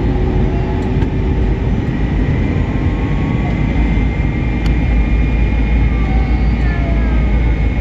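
Airliner cabin noise from inside the passenger cabin: a steady, loud low-pitched din of engines and airflow, with a thin steady whine above it.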